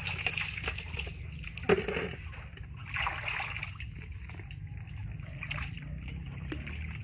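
Water splashing and sloshing in a plastic basin as a baby macaque is dipped and scrubbed by hand during a bath, with one sharper, louder hit just under two seconds in.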